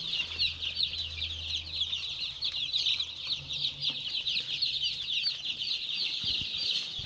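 A flock of 12-day-old Joper chicks (Javanese super native chickens) peeping continuously, many short falling chirps overlapping.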